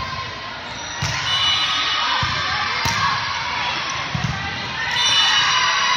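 Crowd of spectators and players cheering and shouting during a volleyball rally, louder about a second in and again near the end, with a few thuds of the ball being struck.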